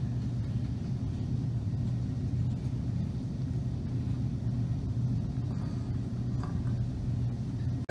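Steady low background rumble with a low hum, unchanging throughout.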